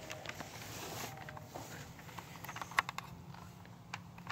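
Slow footsteps on loose river-rock gravel: a scatter of separate crunches and sharp clicks, the loudest nearly three seconds in.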